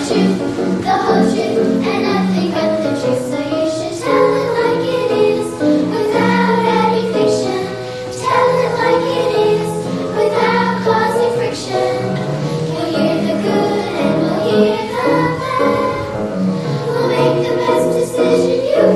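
A choir of children singing a song with musical accompaniment.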